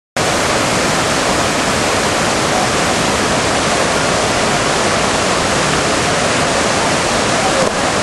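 Kouangsi waterfall: a steady, even rush of water cascading into a pool.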